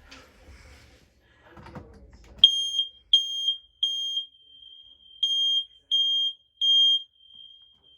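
Smoke alarm sounding under test: after some faint handling clicks, it gives two groups of three loud, high-pitched beeps, starting about two and a half seconds in. This is the temporal-three 'code 3' evacuation pattern, played at a fast pace.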